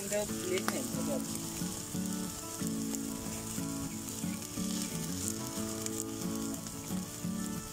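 Chicken sizzling on a wire grill over an open wood fire while it is basted from a ladle: a steady frying hiss.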